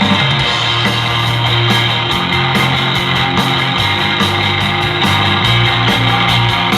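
Rock band playing live in a loud, steady instrumental passage without singing: guitar to the fore over bass and drums, with regular cymbal strikes.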